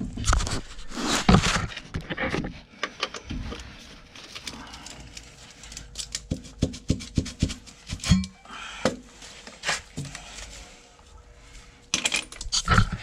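Irregular metallic clicks, knocks and scrapes from tools working the threaded cap off a sewer cleanout, with a quick cluster of knocks near the end.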